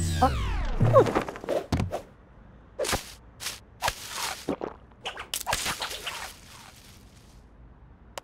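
Cartoon sound effects: a loud pitched glide falling steeply in pitch over about a second, then a string of short whooshes, swishes and knocks.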